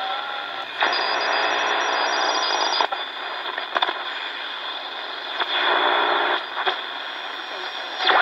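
Static and hiss from the speaker of a Hitachi WH-888R portable shortwave radio as its dial is tuned across the band, swelling twice into louder noise, with scattered crackles and faint whistles between stations.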